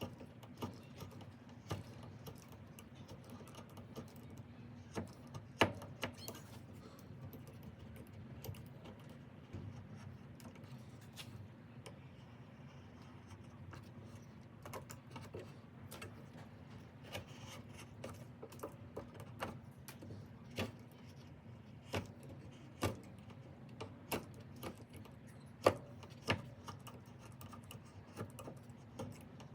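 Razor blade cutting and scraping the soft rubbery grip off a ratchet handle, with irregular sharp clicks and ticks over a faint steady low hum.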